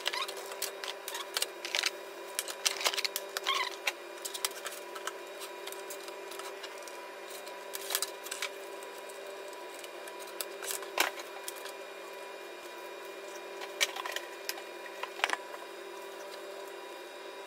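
Scattered light clicks and knocks of cardboard packaging and plastic CCTV camera housings being handled and set down, over a faint steady hum of several tones.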